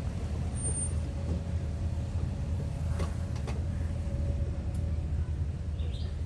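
A Toyota 4Runner's V6 engine runs low and steady as the truck crawls off-road. There are two light knocks about three seconds in.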